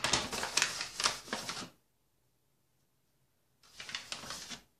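Two bursts of dry rustling as flour is added to a sticky cottage-cheese dough, the first about two seconds long and the second shorter, near the end.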